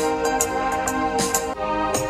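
Background music: a soft instrumental with held notes and a light beat.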